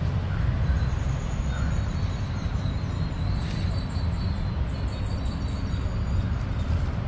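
Steady low outdoor rumble, like wind on the microphone or distant traffic, with a faint thin high-pitched call or whine from about a second in until past the middle.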